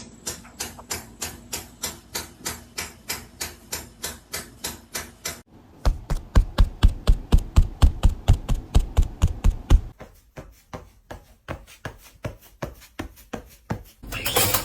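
Rapid, even tapping or knocking, about three to four sharp taps a second. It runs in three stretches: light at first, then heavier with a low thud to each tap from about 6 s, then fainter from about 10 s. A louder rush of noise comes in near the end.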